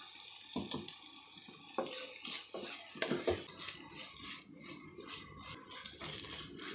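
Wooden spatula scraping and tapping against a nonstick pan while cooked gongura leaves are stirred and pressed, in irregular short strokes starting about half a second in.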